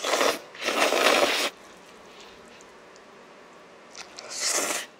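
A person slurping instant noodles through the lips: two slurps close together at the start, then a quiet gap and one more slurp near the end.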